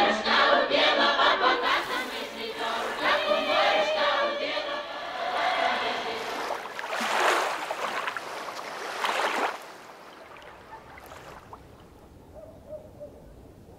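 A group of girls singing a lively, cheerful folk song together, fading out about six seconds in. Then a wave washes up over the sand, swelling and falling back twice.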